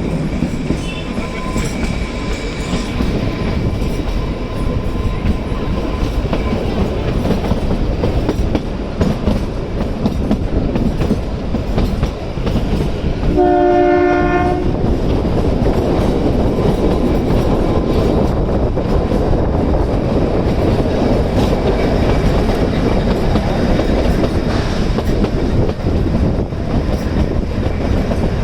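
Kalka–Shimla narrow-gauge toy train running, with a steady rumble and the clack of wheels over the rail joints. Its horn sounds once, for about a second, about halfway through; a faint high whine is heard in the first few seconds.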